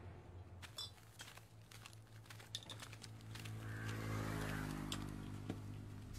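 Soft scattered clicks and ticks, then a low steady hum that fades in about three and a half seconds in.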